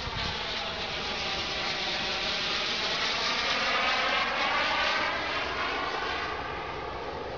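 Radio-controlled model jet trainer flying past overhead: a steady engine whine with many overtones whose pitch slides as it goes by. It swells to its loudest about four seconds in, then eases off.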